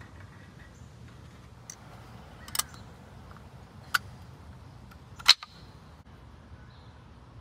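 A few sharp clicks, the loudest about five seconds in, as a brake pad is handled and fitted into a new brake caliper for a 1996 Jeep Cherokee XJ.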